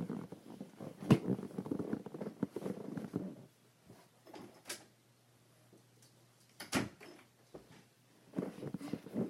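A door being handled and opened or shut indoors: a cluster of muffled knocks and scuffling, a sharp knock about a second in, a few scattered clicks, another loud knock near seven seconds, and more clatter near the end.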